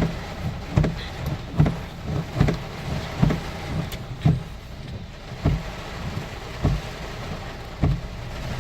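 Car windshield wipers thumping at each stroke, about once a second, over steady rain and car noise inside the cabin.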